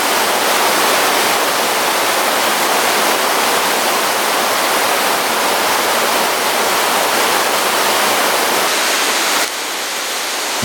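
Waterfall: falling water rushing steadily and loudly, the level dipping slightly near the end.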